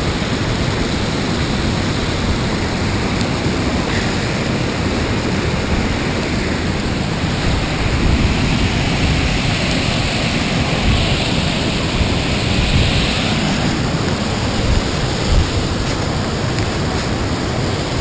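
Girlevik waterfall's steady, even rushing roar, with no breaks.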